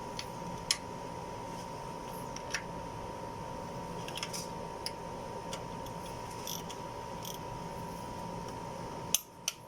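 Scattered light metallic clicks of a torque wrench and socket being worked on cylinder head bolts during the 22 ft-lb tightening pass, over a steady background hum. Two sharper clicks come near the end.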